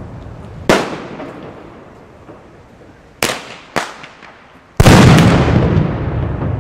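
Firecrackers going off on the ground: a sharp bang about a second in, two more bangs in quick succession past the three-second mark, then a much louder blast near five seconds whose rumbling tail echoes on for over a second.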